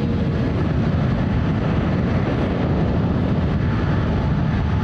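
Boeing 777-300ER's twin GE90 jet engines: a loud, steady, deep rumble as the airliner rolls along the runway.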